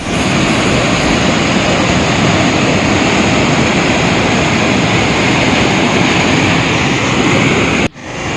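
Waterfall roaring as the river rushes over rocks: loud, steady and unbroken, stopping abruptly near the end.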